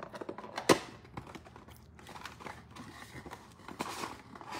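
Cardboard trading-card box being opened by hand: irregular rustling, scraping and crinkling of the box and its flaps, with one sharp click under a second in.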